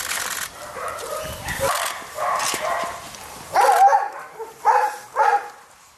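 Dogs barking in short repeated barks, the three loudest close together in the second half.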